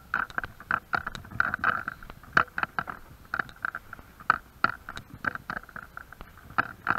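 Footsteps crunching and scraping over debris on a rubble-strewn floor: an irregular run of short knocks and crunches, several a second.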